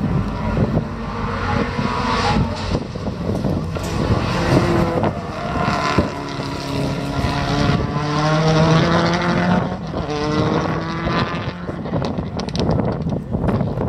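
Prodrive Subaru Impreza WRC rally car's turbocharged flat-four engine driven hard. The engine note climbs and drops repeatedly as it revs up through the gears and comes off the throttle, with several sharp cracks.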